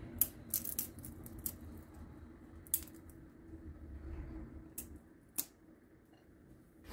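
A handful of sharp, irregularly spaced clicks or snips over a low steady hum, which stops about five seconds in.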